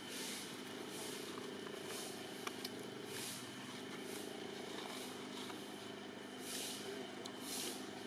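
Steady hum of an idling motor vehicle engine. Over it, a high hiss swells and fades roughly once a second.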